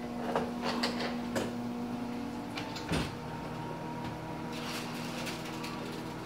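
Electric wall oven running with a steady hum, while its door is handled: a few clicks, a knock about three seconds in as the door comes open, then light clatter as food is slid inside.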